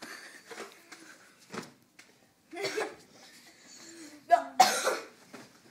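Short, irregular bursts of a boy's voice, laughing and coughing, the loudest burst about three-quarters of the way through.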